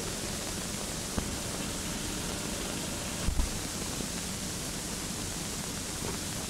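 Steady hiss of an old film soundtrack, with a faint tick about a second in and a short low thump about three seconds in.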